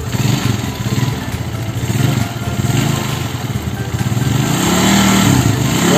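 Yamaha Mio Sporty scooter's small single-cylinder four-stroke engine running, its pitch rising and falling as the throttle is opened and eased off, most clearly in the second half.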